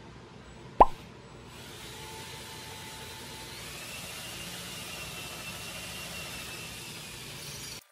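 A sharp knock under a second in, then a cordless drill running steadily as its bit bores a shallow pilot hole into a hardwood cutting board, the depth set by tape on the bit. The drilling cuts off abruptly near the end.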